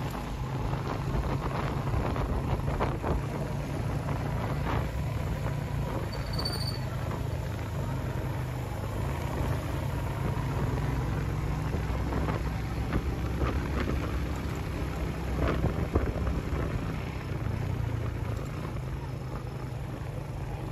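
Motorcycle engine running steadily under way, with wind noise on the microphone.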